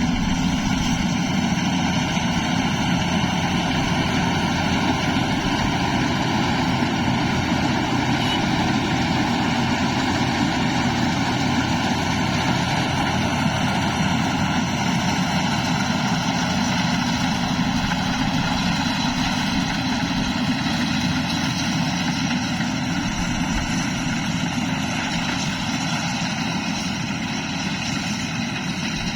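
Rice combine harvester running steadily, its engine and machinery making a constant mechanical noise that eases slightly near the end.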